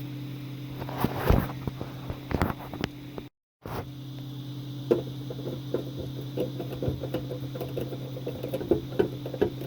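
Clicks, taps and light knocks of small parts being handled and fitted on a range hood, over a steady low hum. The sound drops out completely for a moment about a third of the way in.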